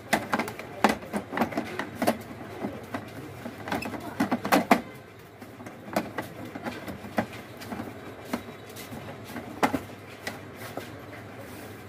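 Plastic clicks and knocks as an LED TV's plastic rear cover is set onto the set and pressed into place by hand. The knocks come thick in the first few seconds, then only now and then.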